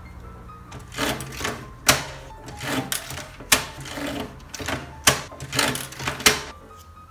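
Desktop binding machine punching holes in notebook pages: paper rustles and slides into the punch slot, and the hand lever comes down with about five sharp metal clacks and rattling.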